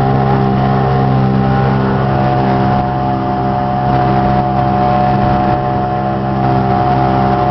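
Motorboat engine running at a steady, even pitch under way, heard from on board.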